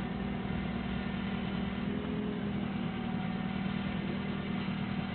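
Doosan 4.5-ton forklift's engine running steadily as the loaded forklift inches forward to climb its rear wheels onto a curb.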